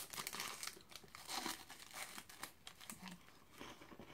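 Plastic wrapper of an Umaibo corn puff stick crinkling and tearing as it is opened by hand, an irregular crackle that is busiest in the first couple of seconds.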